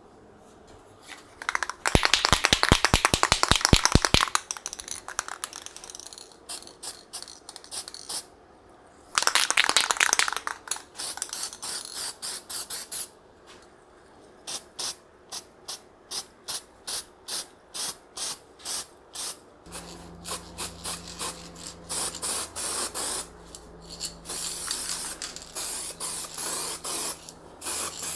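Aerosol spray-paint can hissing: a long burst near the start and another a third of the way in, then a run of short quick bursts about two a second. A faint low steady hum comes in about two-thirds of the way through.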